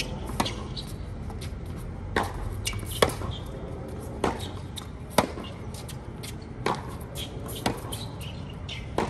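Tennis rally on a hard court: the ball struck by rackets and bouncing off the court, a series of about eight sharp pops roughly a second apart.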